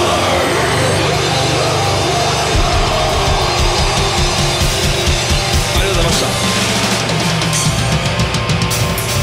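Live metalcore band playing: heavily distorted guitars and bass over a drum kit, with a fast, driving kick-drum pattern and crashing cymbals.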